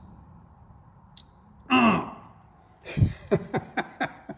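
A brief wordless voice sound, falling in pitch, then a low thump and a quick irregular run of sharp clicks and taps from a handheld spectrometer being handled while a reading is taken.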